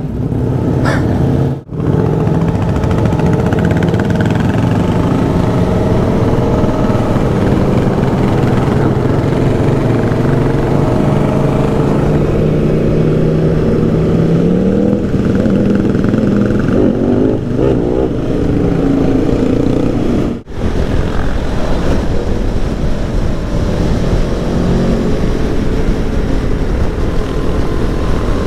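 Motorcycle engine running under way, its pitch rising and falling with the throttle over steady wind rush. The sound drops out sharply twice, about two seconds in and again about twenty seconds in.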